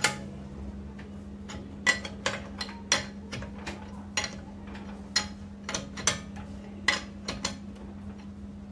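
A dozen or so sharp metal clinks and clacks at uneven intervals as a socket lug wrench is fitted onto and turned on the wheel nuts of a car's alloy wheel.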